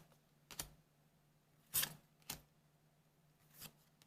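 Trading cards being slid and flipped by hand, four short, faint swishes about a second apart.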